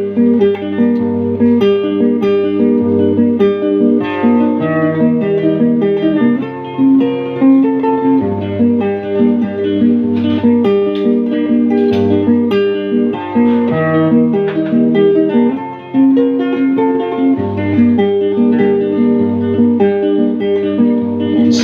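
Instrumental guitar break in a slow Filipino ballad, with melodic guitar notes over chords and a low part underneath, and no singing.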